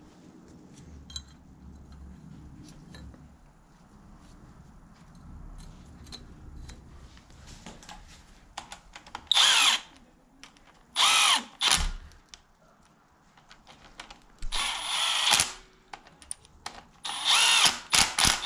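Red Milwaukee cordless power tool running bolts into the front of an LQ4 V8 block beside the timing chain. It runs in several short bursts, each spinning up and back down, mostly in the second half.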